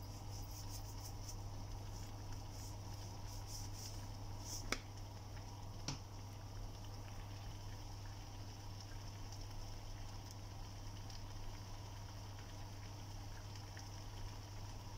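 Thick tomato curry gravy simmering in a pan, with faint bubbling and popping over the first few seconds. Two sharp knocks come about five and six seconds in, over a steady low hum.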